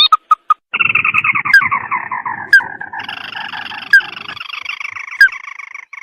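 Recorded lure calls of the red-eyed sintar bird: a few short chirps, then a long, fast rattling trill that slides down in pitch, changing about halfway to a steadier, higher trill. Sharp clicks cut in four times, roughly a second apart.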